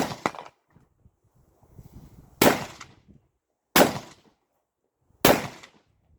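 Carbine shots in a practical shooting stage: a quick pair right at the start, then three single shots spaced about one and a half seconds apart, each trailing off in a short echo.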